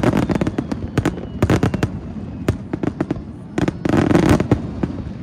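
Fireworks: aerial shells bursting in quick succession with dense, rapid crackling and sharp pops. The thickest, loudest flurries come at the start and again about four seconds in.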